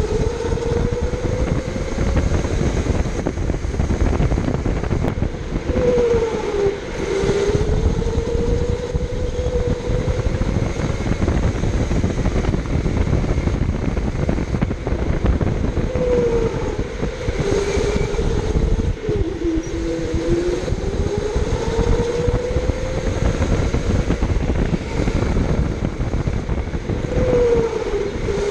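Electric go-kart motor whining under a steady low rumble. Its pitch climbs slowly as the kart speeds up and drops sharply three times as the driver lifts off for corners.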